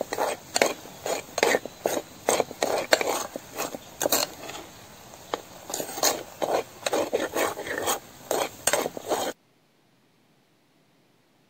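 Steel spoon stirring a thick, nearly dry dried-prawn and mango curry in a pot, scraping and clinking against the pot in quick, irregular strokes. The sound cuts off abruptly about nine seconds in.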